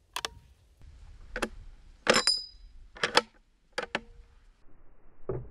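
Short metallic clicks and clinks from a scoped bolt-action rifle being handled, several in irregular succession, some with a brief high ringing.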